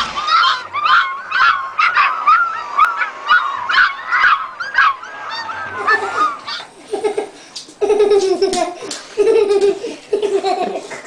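Pit bull puppies yelping and whining in quick, repeated high cries. About six seconds in, a toddler laughing and squealing takes over.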